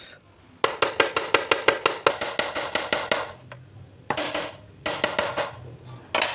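A steel wrench tapping rapidly on a hard plastic panel, about six sharp knocks a second for a couple of seconds. This is followed by a few short bursts of scraping or rubbing on the plastic.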